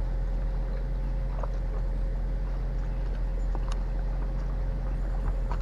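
A steady, unchanging low mechanical hum, like an engine or motor running, with a few faint clicks and taps over it.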